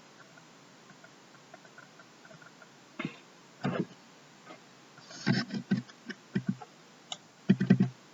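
A few scattered short clicks and brief voice-like sounds, the loudest near the end.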